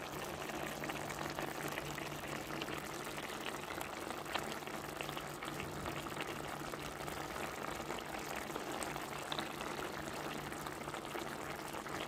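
Chicken adobo simmering in its soy sauce and vinegar braise, the sauce bubbling and popping steadily as it reduces and thickens.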